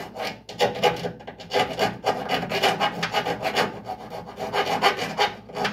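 Hand file rasping in quick back-and-forth strokes, with a couple of short pauses. It is scraping paint from the inside of bolt holes in the truck's sheet metal to bare metal for welding.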